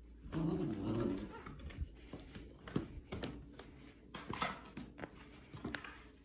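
Shetland Sheepdog puppy growling in play as it tugs on a pajama leg, loudest for about a second near the start, then quieter with scattered sharp clicks and taps.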